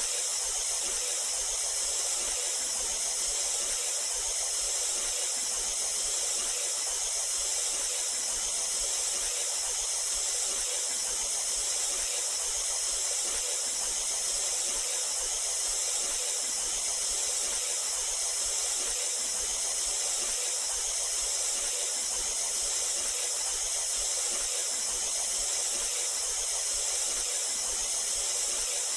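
Anime sound effect of steam hissing steadily off a body powering up, with no break or change. The hiss is strongest in the high range.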